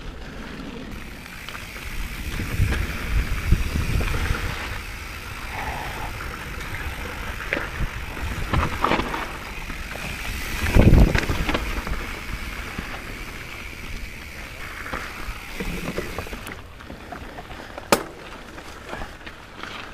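Mountain bike riding down a dirt singletrack: a steady rush of tyres rolling over dirt and stones with the bike rattling, a loud jolt about eleven seconds in, and a sharp click near the end.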